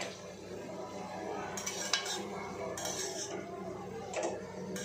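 Long metal spatula stirring cabbage and peas in a metal kadhai: a series of short scrapes and clinks against the pan, roughly one a second, with one sharper clink about two seconds in.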